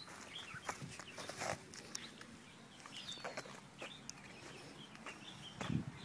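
Faint bird chirps and short falling whistled calls, with scattered light handling clicks and a low thump near the end.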